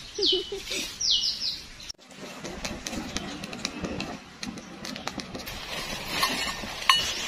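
A bird calls several times in short, falling whistles. After a sudden cut about two seconds in, a wood campfire crackles with many scattered pops and snaps.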